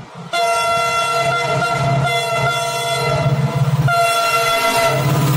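Diesel locomotive sounding a long multi-tone horn that starts suddenly about a third of a second in and runs on with brief breaks about two and four seconds in, over the low throb of its engine as the express approaches.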